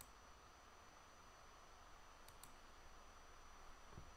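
Faint computer mouse clicks: one click, then two quick clicks a little over two seconds later, over near-silent room tone with a faint steady high whine.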